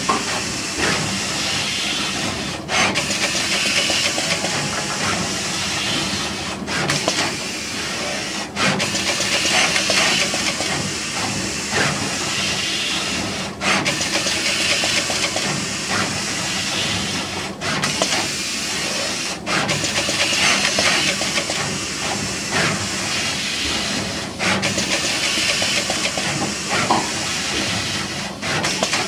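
Surface-mount pick-and-place machine running, its placement head with its row of vacuum nozzles working over circuit-board panels: a steady airy hiss that swells and eases every few seconds.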